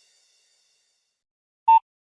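Near silence, broken about 1.7 seconds in by one short electronic beep from a Nokia phone.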